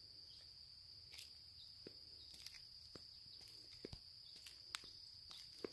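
Faint, steady high-pitched trilling of crickets or similar insects, unbroken throughout. A few soft, scattered clicks of footsteps sound over it.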